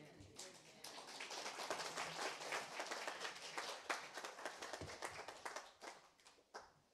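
Small congregation applauding: a dense patter of hand claps that builds within the first second and dies away near the end.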